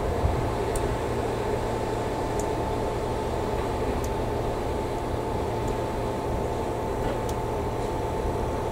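Shinano Railway 115-series electric train giving off a steady mechanical hum: several even tones over a low rumble, with a few faint ticks.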